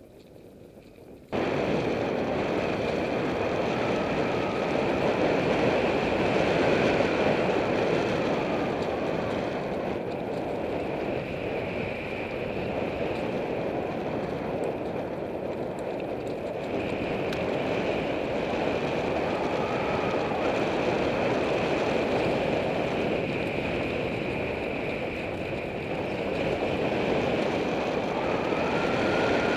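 Mountain bike rolling along a forest trail: steady tyre noise and rattle that starts abruptly about a second in.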